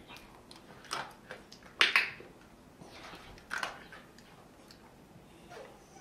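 Handheld dog-training clicker clicked a few times, the loudest a quick double click about two seconds in. Each click marks the moment the dog lowers her head.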